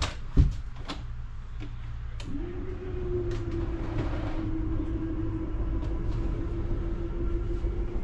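A sharp knock, then about two seconds in an RV slide-out room's electric motor starts and runs with a steady hum and low rumble as the slide room moves.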